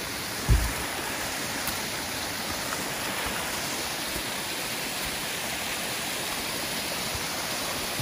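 Steady rush of water from a mountain waterfall and its stream, with a brief low thump about half a second in.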